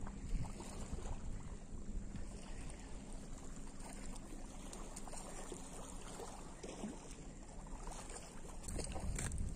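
Wind rumbling on the microphone over small waves lapping and splashing at a rocky river bank.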